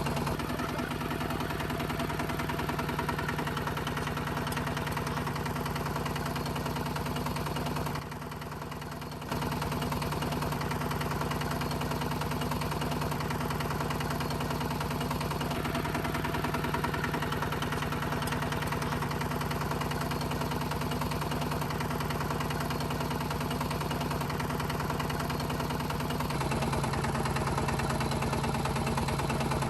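Small motor of a DIY miniature tractor running with a steady hum while it plows. The hum drops out for about a second around eight seconds in, and near the end its pitch steps slightly lower and it gets a little louder.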